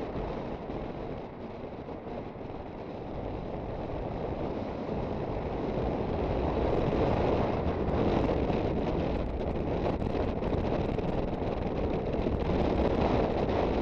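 Wind rushing over the microphone on a moving Aprilia Sportcity Cube 250 scooter, mixed with its engine and road noise. The noise dips slightly about two seconds in, then grows louder toward the middle and stays loud.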